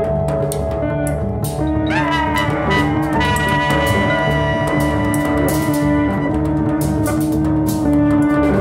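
Free-leaning jazz quintet of saxophone, electric guitar, upright bass, drums and percussion playing. Held melodic notes and a rising pitch slide about two seconds in sound over busy cymbal and drum strikes and a low bass line.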